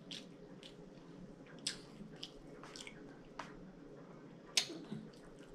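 Close-miked chewing and wet mouth clicks, faint, with a handful of short sharp clicks scattered through it; the sharpest comes about four and a half seconds in.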